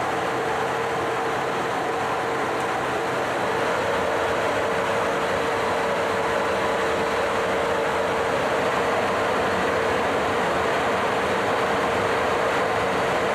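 KC-135 Stratotanker flight-deck noise in cruise: a steady rush of air and engine noise with a constant hum.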